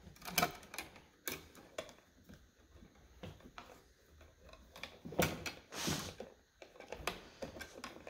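Steel wire strippers and electrical wires being handled: irregular small clicks, snips and rustles, a little louder about five to six seconds in.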